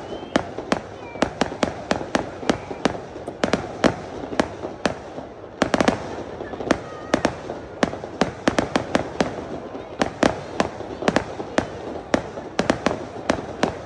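Aerial fireworks bursting in a rapid, irregular string of sharp bangs, several a second, over a steady background rumble.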